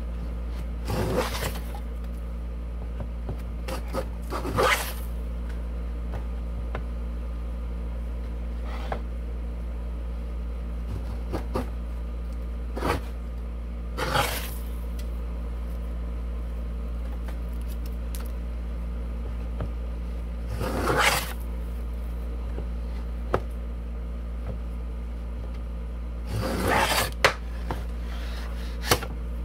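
Shop-made wooden grooving plane pushed by hand along a board, each stroke a short rasping scrape as a long shaving peels off. There are about six strokes, spaced several seconds apart, with a few light clicks, over a steady low hum.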